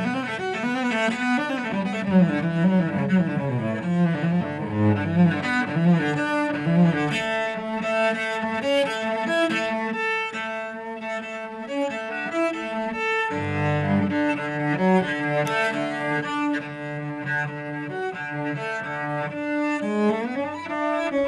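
Solo cello played with the bow: a run of quick, changing notes for the first several seconds, then slower, longer held notes, with a note sliding upward near the end.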